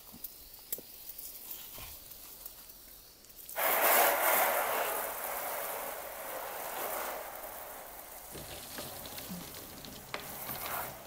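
Water from a garden hose jet spraying onto a roof, starting suddenly about three and a half seconds in as a loud steady hiss that eases a little after a second or so, used to wash the roof and gutter clean. Before it comes on there are only a few faint clicks.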